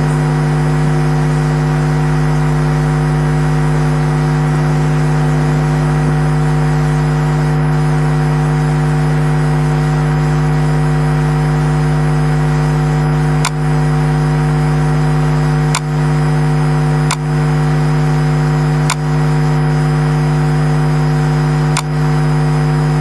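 Loud steady electrical hum made of several fixed tones in the chamber's sound feed, a fault that comes up while a video is being cued for playback. A few brief dropouts with clicks break it in the second half.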